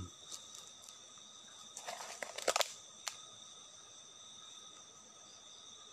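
Night insects chirring in steady high tones. A short cluster of clicks and rustles about two seconds in, and one sharp click a moment later.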